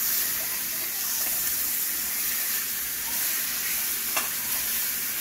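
Pork chops searing in hot olive oil in a metal frying pan: a steady sizzle, with one short click about four seconds in.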